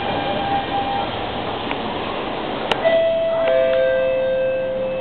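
Electric motor whine of a C651 train fading out as it comes to a stop, then a click and a two-note falling bell-like chime from the station's public-address system, the notes held and ringing on, the usual signal before an announcement.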